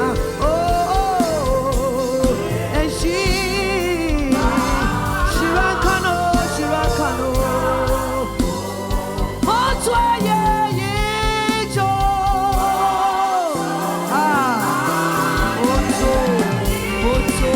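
Gospel worship song: a voice singing with vibrato over a band with bass and drums. The bass drops out for a moment about two-thirds of the way through.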